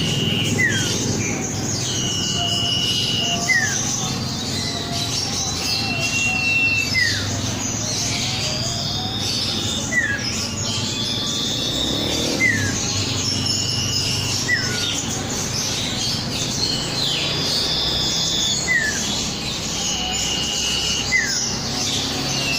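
Cipow (sirtu), a common iora, singing a repeated phrase: a held whistle followed by a short falling note, about every two seconds, with other chirps in between over a steady low hum.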